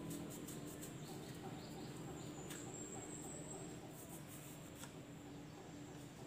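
Quiet room tone: a faint steady low hum with scattered light ticks and soft rubbing.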